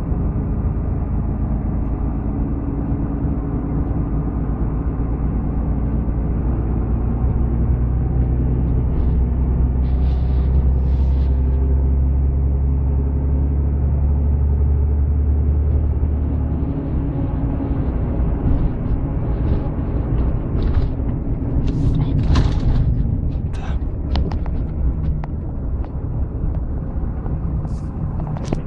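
Vehicle running, a steady low rumble of engine and road noise that eases a little past the middle, with a series of short clicks and knocks in the last third.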